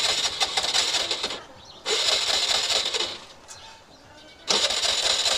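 Scooter engine being cranked three times, each try lasting about a second and a half and cutting off without the engine catching: the scooter won't start.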